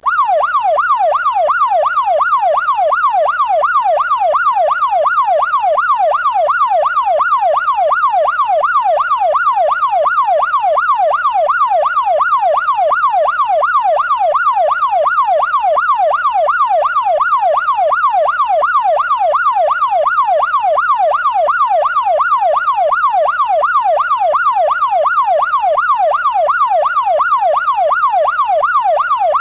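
Electronic police siren in a fast yelp, its pitch sweeping up and down about twice a second in an even, unbroken cycle.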